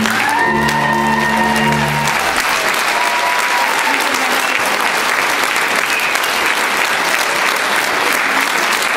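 Audience applauding steadily, while the folk-dance music ends on a last held chord about two seconds in.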